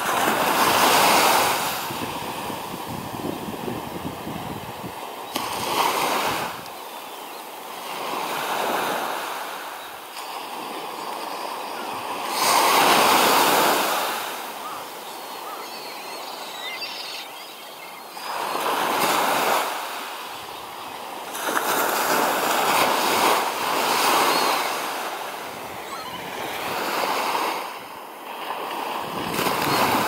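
Small sea waves breaking and washing on the shore, a rushing noise that swells and fades every few seconds.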